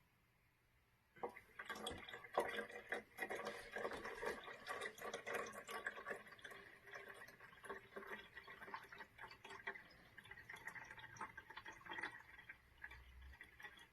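Faint water pouring and trickling into a condensate pump's reservoir, with small irregular splashes and drips, starting about a second in. The reservoir is still filling, not yet high enough to trip the pump's float switch.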